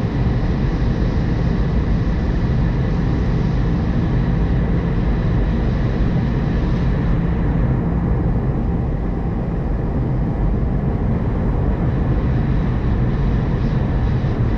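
Steady cabin roar inside an Airbus A320 airliner on descent: engine and airflow noise, mostly low and deep, with a faint steady whine higher up. The higher hiss drops away about eight seconds in.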